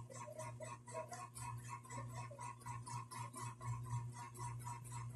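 Faint room sound: a steady low hum with rapid, even ticking at about five a second.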